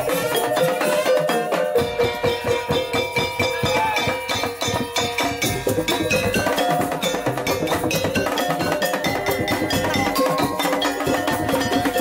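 Madurese daul music: a parade percussion ensemble playing a busy beat of drums and knocking wooden percussion, with a pitched melody line over it.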